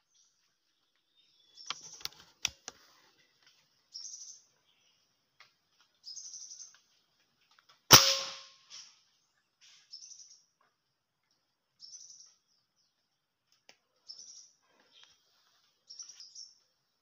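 One sharp crack of a PCP air rifle shot about eight seconds in, dying away over about half a second, amid short high chirps of small birds repeating every second or two. A few sharp clicks come about two seconds in.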